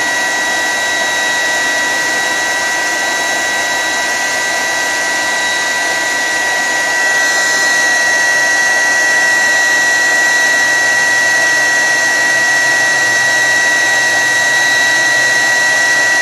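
Hot-air heat gun blowing steadily, an even rush of air with a high steady whine. It gets slightly louder about seven seconds in. The hot air is reflowing the solder on the pads to seat a new surface-mount LED.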